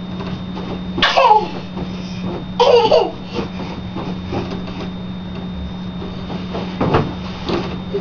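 A baby vocalising while playing: two short squeals about a second in and near three seconds, the first falling in pitch, then a couple of soft knocks near the end, over a steady low hum.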